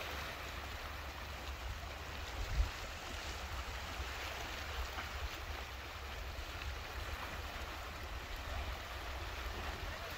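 Small sea waves washing and lapping against shoreline rocks, an even watery hiss, with a low rumble underneath and a single brief thump about two and a half seconds in.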